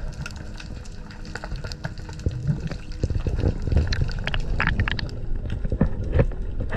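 Water sloshing and bubbling around an underwater camera as a freediver duck-dives and kicks down with his fins, with irregular splashes and knocks that grow louder about two seconds in.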